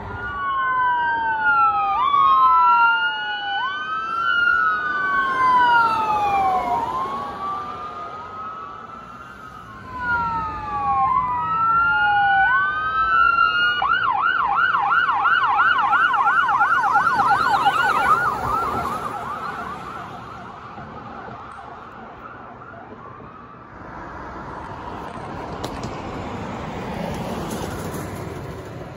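Ambulance sirens sounding in slow up-and-down wail sweeps, two overlapping at first. A few seconds later a siren wails again and switches to a fast yelp for about four seconds, then fades out, leaving passing traffic noise.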